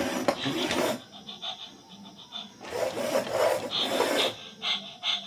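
Rasping, scraping strokes of something being filed or rubbed: one about a second long at the start, a longer one in the middle, and short ones near the end.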